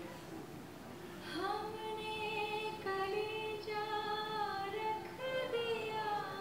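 A woman singing a slow melody of long held notes that slide smoothly between pitches, her voice entering with an upward scoop about a second in.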